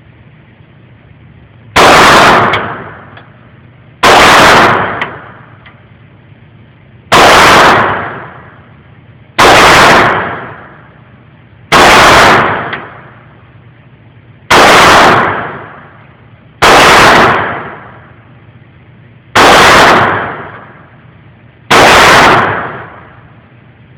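Glock 17 9 mm pistol fired in slow, single shots: nine sharp shots about two to three seconds apart, each followed by an echo that dies away over about a second.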